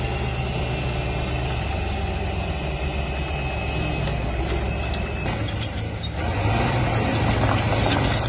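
A heavy machine's engine running steadily, with a low drone and a thin high whine that slowly falls, then jumps to a higher pitch about five seconds in as the noise grows.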